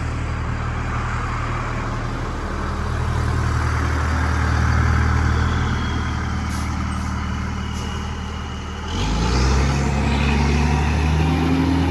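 Fire engine's engine running with a steady low rumble, then about nine seconds in it gets louder and its pitch climbs steadily as the truck accelerates away.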